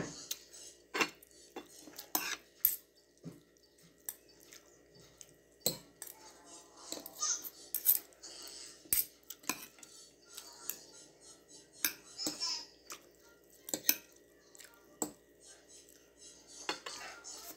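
Metal spoon and fork clinking and scraping against a plate while eating rice and fish, in irregular sharp clicks about once a second.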